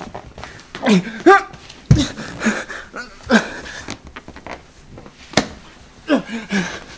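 A man groaning in several short moans that fall in pitch, with a single sharp click or knock a little past the middle.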